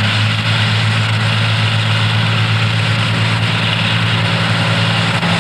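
Diesel tractor engines running steadily as two tractors pull round balers through the swath: a continuous low engine drone.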